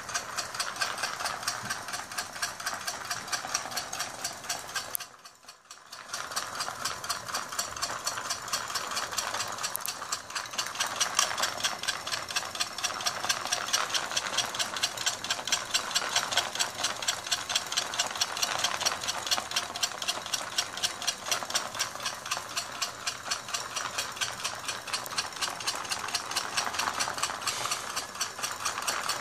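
Handmade 12 V DC model dual-power motor-ship engine running: home-wound coil motors driving popsicle-stick reduction gears, a flywheel and a propeller, giving a fast, even rattling clatter. It drops almost to silence for about a second around five seconds in, then picks up again.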